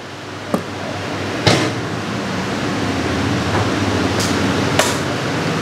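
A utility knife slits the packing tape on a cardboard camcorder box, giving a few sharp clicks and snaps. Under them is a steady rushing room noise that swells over the first two seconds and then holds.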